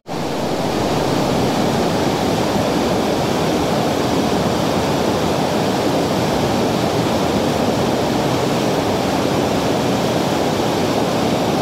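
Fast-flowing river water rushing over rocks, a loud, steady, unbroken rush.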